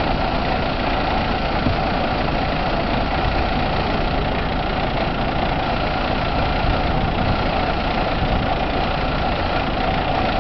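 Steady roar of a fully involved mobile-home fire, with a steady mechanical drone running under it.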